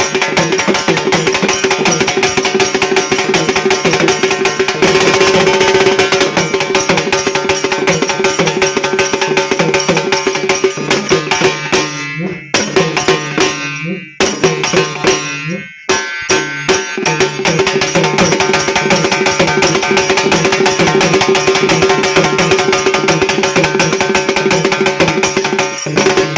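Loud music driven by a fast, even drum beat over a held tone, which thins out briefly a few times near the middle.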